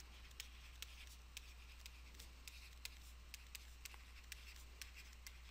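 Near silence with faint, irregular light ticks of a stylus tapping and sliding on a tablet screen as a line is handwritten, over a low steady hum.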